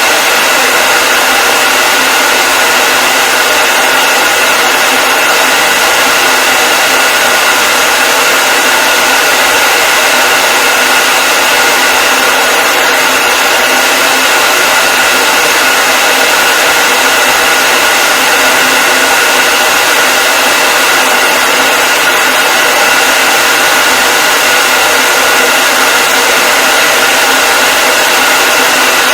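Hair dryer running steadily: a loud, even blowing hiss with a constant high whine from its motor and fan.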